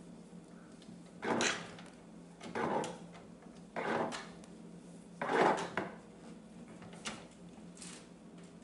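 Socket ratchet wrench with an extension working the steering-wheel centre bolt of a lawn tractor: four short bursts of clicking, then a couple of faint clicks near the end.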